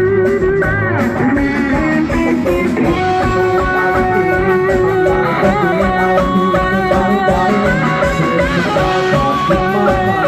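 Live band music: an instrumental passage of melodic lines over a steady beat.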